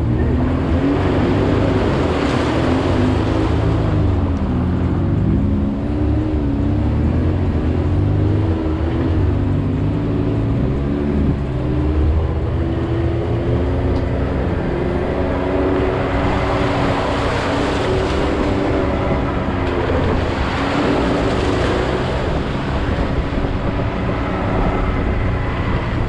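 Side-by-side UTV engine running under changing throttle, its pitch rising and falling as it drives the trail. A rushing noise swells over it a couple of seconds in, and again for several seconds past the middle.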